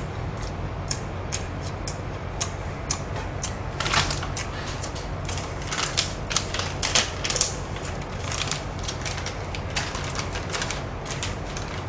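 Close-up eating and handling noises: irregular crinkling and clicking as chicken is chewed and a plastic glove and napkins are handled, over a steady low hum. The clicks come thickest about four seconds in and again around six to seven seconds.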